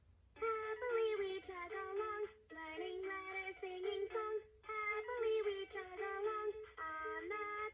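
VTech Sit-to-Stand Alphabet Train's electronic melody played through the toy's small speaker, a bright tune of stepped notes in short phrases with brief pauses between them.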